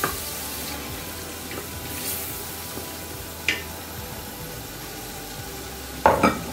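Spice masala sizzling as it fries in oil in a pot, being stirred. Sharp metal clinks of a spoon or utensil come at the start, about three and a half seconds in, and in a louder cluster near the end.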